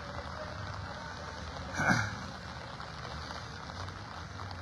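Steady outdoor background noise, with one brief throaty vocal noise from a person close to the microphone about two seconds in, falling in pitch, like a short throat-clear or exhale.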